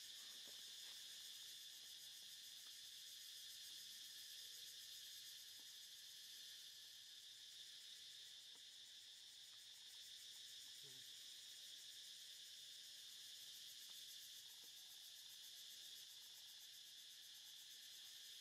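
Faint, steady high-pitched chorus of insects, a continuous shrill trilling with no change in rhythm or pitch.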